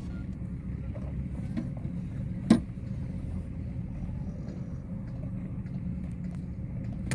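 Steady low mechanical hum, like an engine running, with a single sharp knock about two and a half seconds in.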